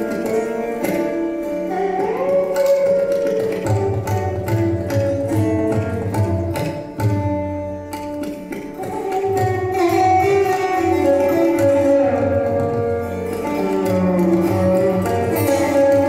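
Instrumental background music in an Indian classical style: a plucked string instrument playing melodic lines with sliding notes over hand drums.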